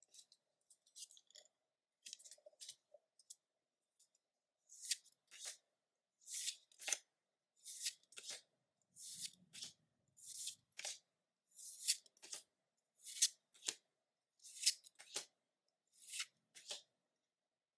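Pokémon trading cards being slid one by one through the hand, giving short, crisp papery swishes, mostly in pairs, about every second and a half.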